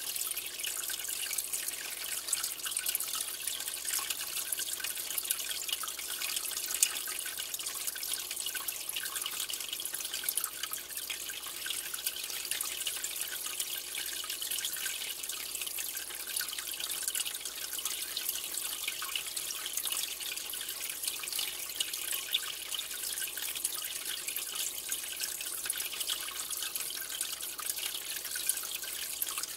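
Aquarium water trickling and bubbling steadily, a fine splashing hiss that goes on without pause.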